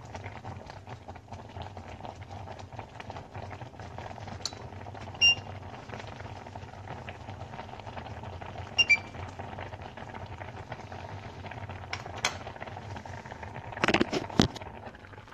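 A pot on the stove bubbling steadily. A metal utensil clinks against the pot twice, about five and nine seconds in. A few knocks near the end.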